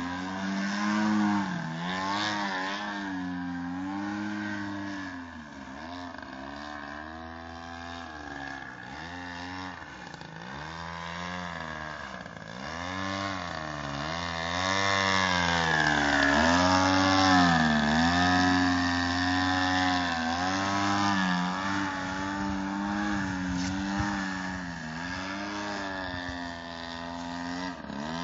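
DLE 55cc single-cylinder two-stroke petrol engine of a 2.2 m Sbach 342 RC aerobatic plane in flight, its pitch rising and falling again and again as the throttle and the plane's distance change. It is loudest about halfway through.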